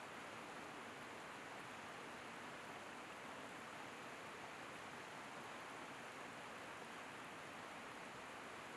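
Faint, steady rush of a waterfall.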